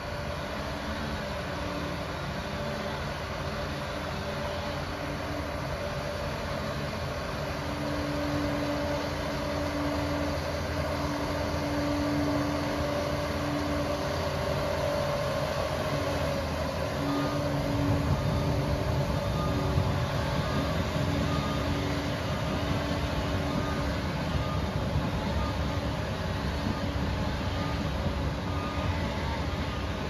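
Liebherr 746 crawler dozer's diesel engine running under load, growing louder as the machine comes closer. From about halfway through, a reverse alarm beeps roughly once a second as it backs away.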